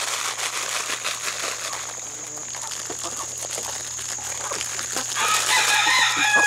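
Backyard chickens: faint scattered taps, then about five seconds in a chicken gives a drawn-out call lasting nearly two seconds.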